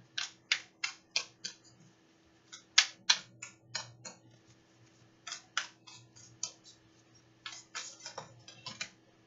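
A deck of oracle cards being shuffled hand to hand: quick runs of crisp clicks and slaps as small packets of cards drop against the deck. There are four bursts of a second or so, with short pauses between them.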